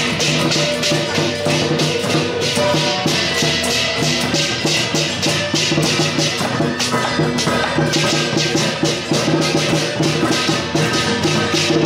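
Loud music with a fast, steady percussion beat over sustained melodic notes.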